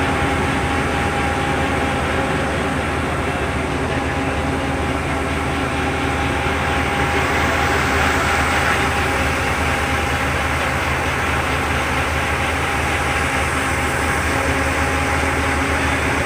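Engine of a jangar ferry running steadily under way: an even, low drone that does not rise or fall.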